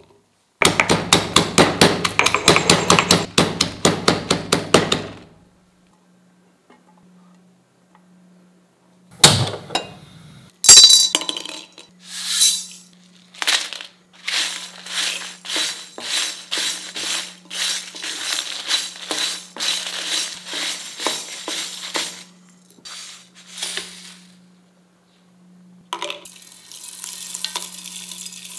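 Garlic and ginger pounded in a stone mortar, about six quick strikes a second for several seconds. Then a spatula scrapes and stirs whole dried spices in a metal kadai in short repeated strokes, about two a second. Near the end coriander seeds and whole spices are poured rattling into a steel mixer-grinder jar.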